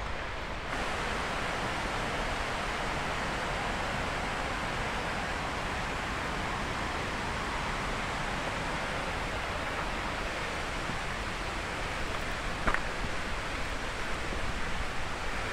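Steady outdoor rushing noise, even and unbroken, with one sharp click about three-quarters of the way through.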